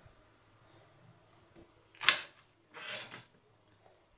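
Kitchen knife cutting a green bell pepper on a plastic cutting board. A sharp knock of the blade on the board comes about two seconds in, followed shortly by a scraping sound about half a second long as the knife is drawn through the pepper.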